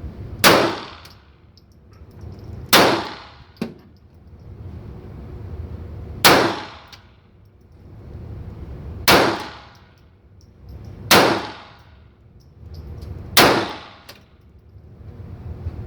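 A GSG 1911-22 .22 LR pistol firing Aguila Super High Velocity rounds. Six single shots ring out, slowly and unevenly spaced, each a sharp crack with a brief ringing tail, and a smaller click between the second and third shots.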